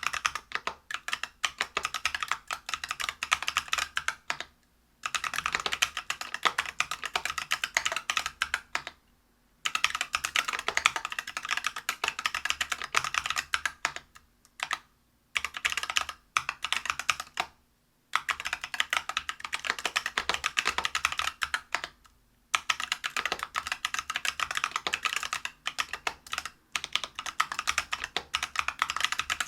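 Steady, fast typing on a Whale 75 mechanical keyboard with stock, unlubed Neapolitan Ice Cream tactile switches (63.5 g), a brass plate and PBT keycaps: dense runs of keystroke clicks and clacks, broken by a few short pauses of about a second.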